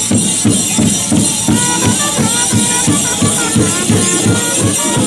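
Music with a quick, steady beat of about four strokes a second and a high melody line over it.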